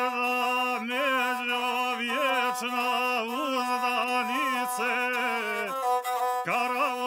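Gusle, the single-stringed bowed folk instrument, playing a solo ornamented melody with quick trills around held notes. The line breaks off briefly about six seconds in and starts again.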